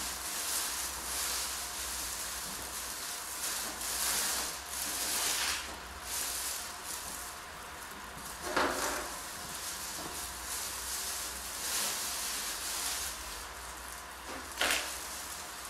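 Thin plastic gloves and plastic wrap crinkling and rustling as wet hair is wound onto a perm rod, with a few sharper crackles about halfway through and near the end.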